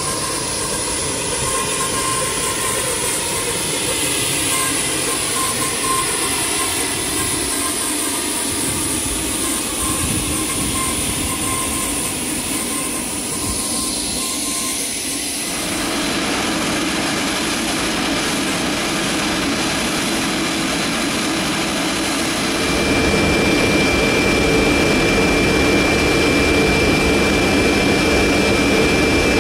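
Steady aircraft turbine noise with a high steady whine and slowly gliding tones. The sound changes abruptly twice, about 15 and 23 seconds in, and the last stretch is a little louder with a steady high tone.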